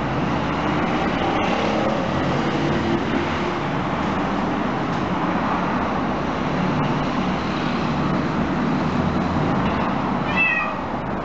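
Steady street traffic noise coming in through an open window, with a short, high cat meow about ten seconds in.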